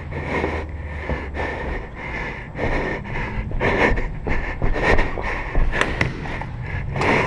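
A person panting hard from exertion, quick breaths about two to three a second, close to the microphone.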